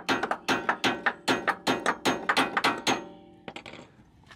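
Hand ratchet clicking in quick, even strokes, about five a second, with a light metallic ring, as a bolt on a new front lower control arm is run in. It stops about three seconds in, and a few softer clicks follow.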